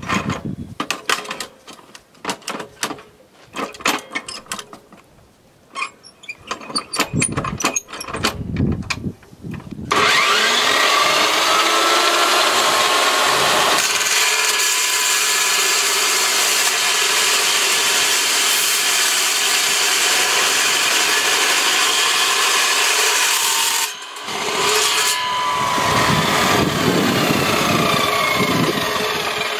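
Clicks and knocks of metal parts being handled, then about ten seconds in an electric power tool spins up with a rising whine and runs loud and steady, cutting through an AR-15 rifle's metal. It stops briefly and starts cutting again near the end.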